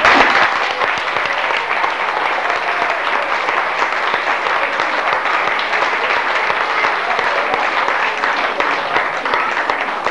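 A roomful of people applauding, many hands clapping together in a steady spell of applause that thins out near the end.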